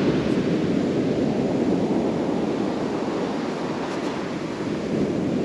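Heavy swell breaking and washing back on a steep shingle beach, a steady rushing roar, with wind blowing on the microphone.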